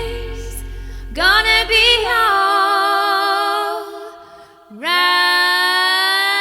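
Female vocals singing long held notes with a slight vibrato. The low backing drops out about two seconds in, leaving the voices nearly unaccompanied. Near the end a new note slides up and is held.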